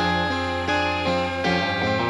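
Music played on guitar over a steady low bass, with the notes changing several times a second.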